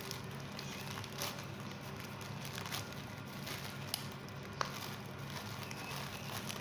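Plastic courier mailer bag crinkling and rustling as hands tear and pull it open, with a few sharp crackles of the plastic.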